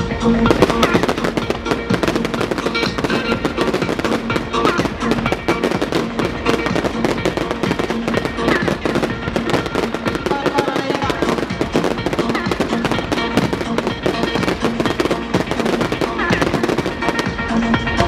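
Fireworks bursting and crackling in rapid, overlapping succession, against loud music playing throughout.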